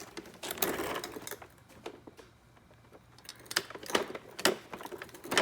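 Hoover Decade 800 upright vacuum being handled: a short rustle about half a second in, then a run of irregular plastic clicks and knocks near the end. No motor is running yet.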